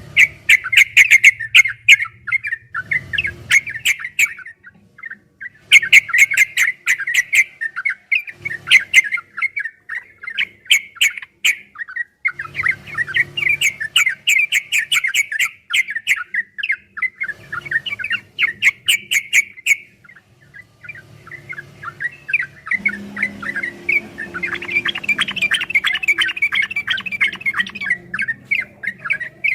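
Yellow-vented bulbul (trucukan) singing a long, rapid run of chattering notes, in several bouts separated by short pauses.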